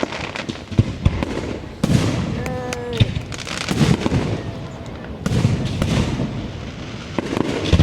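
Fireworks display going off: repeated sharp bangs with crackling between them, and a brief falling whistle-like tone about two and a half seconds in.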